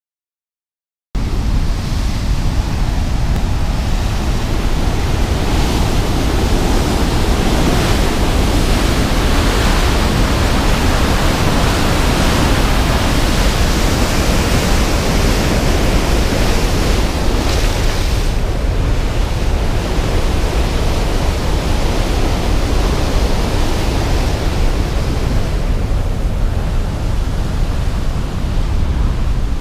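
Loud, steady rush of water pouring out of a dam's flood-gate outlet and churning below it, from a release of about 6400 cubic feet per second. It starts suddenly about a second in.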